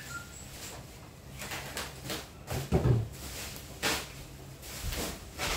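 Irregular knocks and clunks from handling a portable amplifier cabinet and plugging cables into its back panel. The heaviest thump comes a little under three seconds in, over a faint steady low hum.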